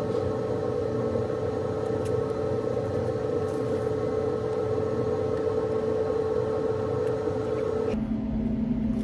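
Steady mechanical hum holding one pitch, which drops to a lower pitch about eight seconds in, with a few faint clicks.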